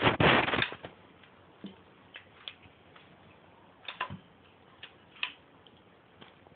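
Handling noise of parts being fitted back together: a loud clatter in the first half second or so, then scattered light clicks and taps.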